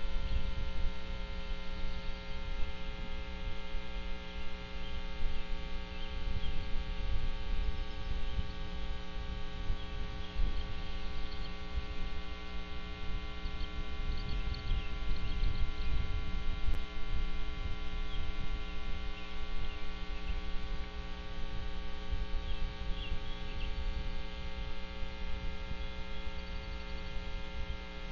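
Steady electrical hum with many overtones from the nest camera's audio feed, over a low, unsteady rumble, with faint short high chirps now and then.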